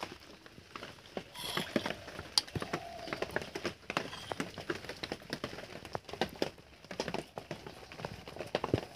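Someone tasting a fish curry: soft, irregular clicks and smacks of eating and chewing, several a second, with a faint murmur or two.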